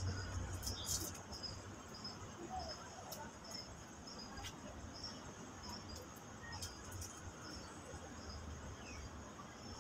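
Insects chirping faintly: a short high chirp repeating about twice a second over a steady high-pitched buzz.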